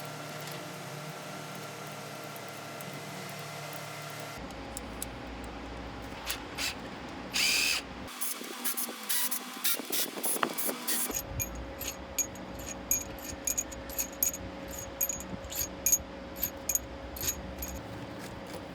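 Workshop tool work on an engine: a string of irregular metal clicks and clanks, with a short hiss about seven seconds in.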